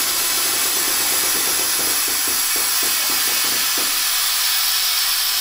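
Chevy 1500 air-ride suspension being aired out: a loud, steady hiss of compressed air dumping from the rear air bags as the truck lowers. A brief rapid flutter sits underneath in the middle.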